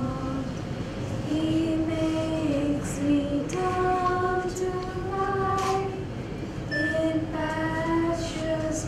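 Two girls, a teenager and a younger child, singing a slow prayer song together into a microphone, with long held notes that step up and down.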